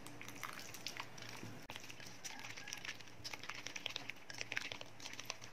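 Plastic spoon stirring a thick, wet flour-and-spice batter in a bowl: soft squelching with many small irregular clicks of the spoon against the bowl.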